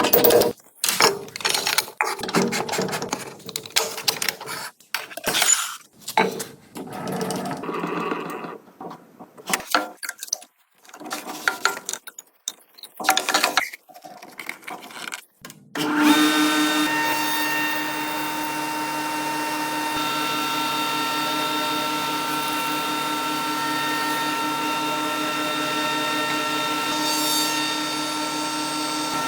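Irregular, stop-start knocks and scraping for roughly the first half, then a spindle shaper comes in suddenly and runs steadily with a constant whine for the rest.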